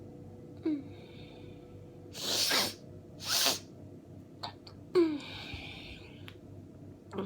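A person with a head cold sneezing in a rapid fit: several short sneezes with sharp breaths between them, the loudest about five seconds in.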